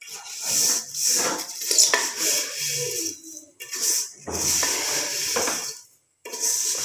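Wooden spatula stirring handmade vermicelli in a large metal pot, scraping the pot and tossing the dry strands in about four long strokes with short pauses between them, as the vermicelli roasts in a little oil.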